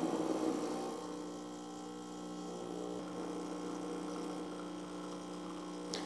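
Lelit Anna 2 espresso machine's vibratory pump humming steadily while it pushes water through the portafilter during a shot.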